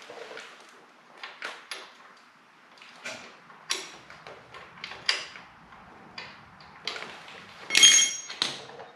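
Scattered clicks and clinks of metal hand tools, a socket ratchet and extension, working on bolts. About eight seconds in comes one louder metallic clink that rings briefly.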